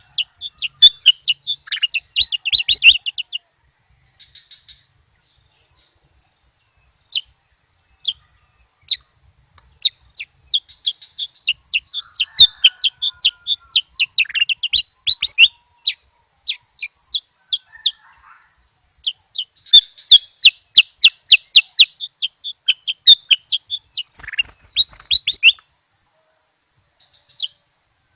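A bulbul singing in rapid runs of short, sharp, high chirps, several a second. The runs come in bouts with pauses between them, over a steady high hiss.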